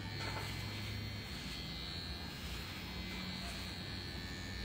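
CNC CW2 rotary tattoo machine with a 3.5 mm stroke running with a steady electric buzz and hum as its needle cartridge pulls bolder lines into skin.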